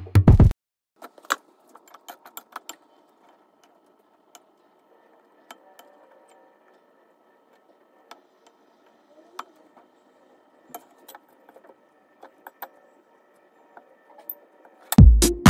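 Scattered light clicks and clinks, a few every second, over a faint steady hum. Background music cuts off in the first half second and comes back near the end.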